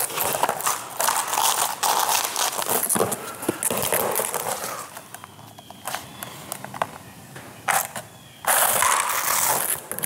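Hard scraping and scratching across the surface of a vinyl plank in a scratch test. Loud rough strokes come first, then a quieter stretch with a couple of sharp knocks, then another long scrape near the end.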